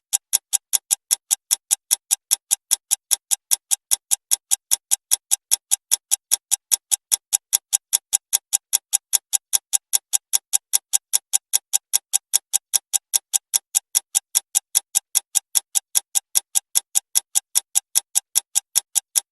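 Clock ticking fast, about four even, identical ticks a second.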